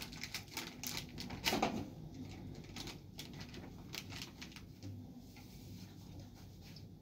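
Small clicks, taps and scrapes of a spoon and containers being handled, with one louder knock about one and a half seconds in.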